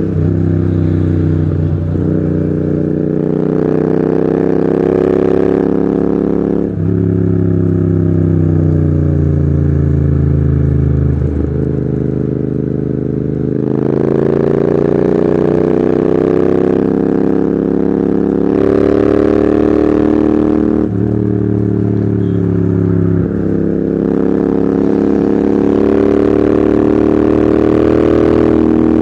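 Royal Enfield Continental GT 650's 648 cc parallel-twin engine running through loud Red Rooster aftermarket exhausts while being ridden. The engine note drifts up and down with the throttle and breaks off briefly at several gear changes.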